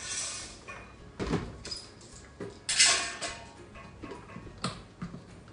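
Kitchen handling sounds: scattered knocks and clatters as a countertop blender's jar and lid are put together before blending the spice paste, with one louder clatter about three seconds in.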